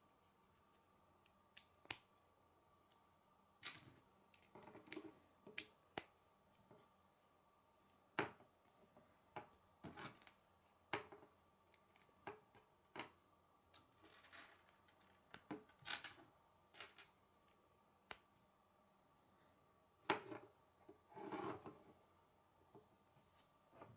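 Plastic K'nex rods and connectors being snapped together and handled: sharp, irregular clicks, with brief rustling of the parts twice.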